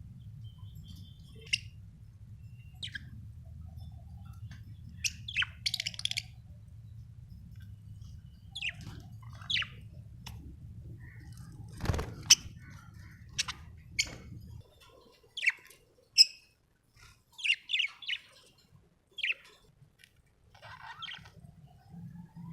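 Budgerigars chirping in short, separate calls scattered throughout. A low steady hum sits underneath and stops about two-thirds of the way through.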